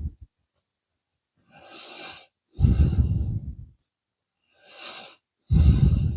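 A person breathing close to the microphone: two breaths, each a quiet inhale followed by a louder exhale.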